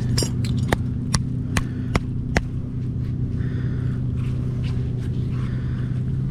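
An engine running steadily, with about six sharp clicks evenly spaced over the first two and a half seconds.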